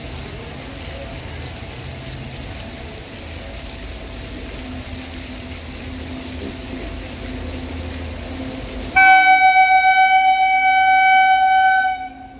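Heavy rain hissing steadily, then about nine seconds in the approaching electric locomotive sounds its horn: one long, single-pitched blast of about three seconds that is the loudest thing here and cuts off sharply.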